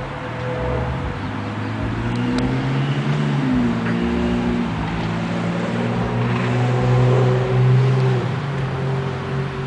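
A motor vehicle engine running with a steady low hum whose pitch shifts a little, growing louder through the first part and easing off after about eight seconds.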